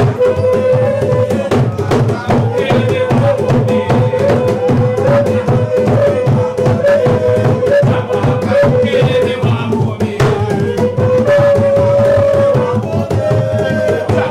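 Maroon hand drums played with bare hands in a fast, steady rhythm. A voice sings a held, stepping melody over them.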